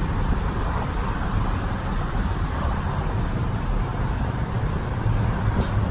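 Steady road-traffic noise, a low rumble with no distinct events, and a brief click near the end.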